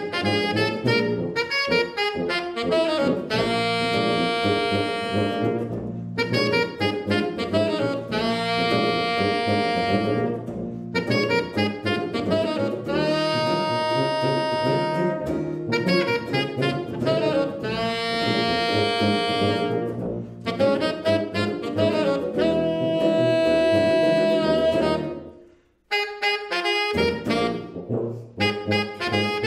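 A jazz blues on tenor saxophone, hollow-body electric guitar and tuba. The saxophone plays a run of long held notes, each about two seconds, over guitar chords and a tuba bass line. The band stops briefly near the end, then starts again.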